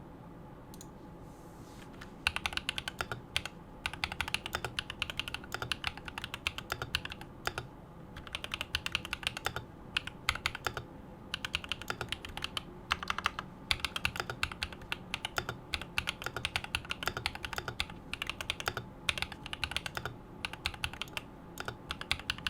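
Typing on a mechanical keyboard, an AngryMiao Cyberboard with Holy Panda tactile switches lubed with Krytox 205G0. The keystrokes start about two seconds in and come in fast runs with brief pauses.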